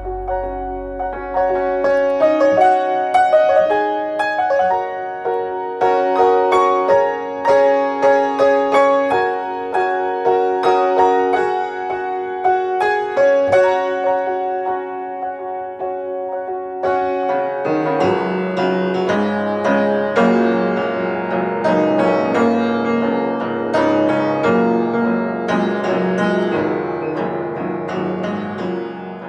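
Instrumental music without singing: a piano playing a run of struck notes, joined by lower, fuller notes about eighteen seconds in.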